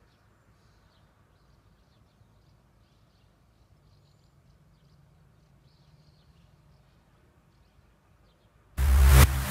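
Faint outdoor ambience with a low steady hum and small birds chirping now and then. Near the end, loud electronic dance music with a heavy beat cuts in abruptly.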